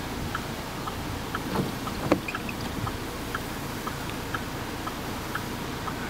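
Inside a car: a steady rumble with the indicator ticking about twice a second in an alternating tick-tock, and a sharper knock about two seconds in.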